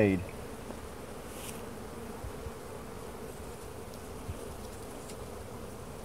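A honeybee colony humming steadily around an opened hive, the even drone of many wings, with a few faint ticks.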